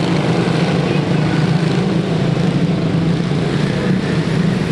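Quarter midget race cars' small Honda engines running steadily as the cars circle the track, a loud, even drone with no breaks.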